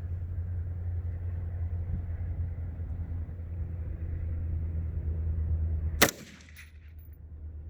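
A single AR-15 rifle shot about six seconds in, a sharp crack after a steady low rumble; the round lands short in the dirt below the steel gong.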